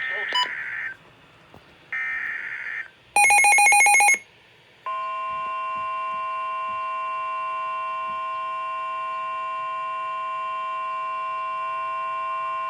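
NOAA Weather Radio alert sequence: two short bursts of SAME digital header data, then a very loud pulsing buzz about three seconds in. About five seconds in the steady 1050 Hz warning alarm tone starts and holds, signalling a new warning about to be read.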